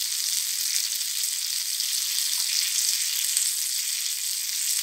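Two semolina- and rice-flour-coated stuffed pomfret shallow-frying in oil in a frying pan, with a steady, even sizzle as the second side crisps.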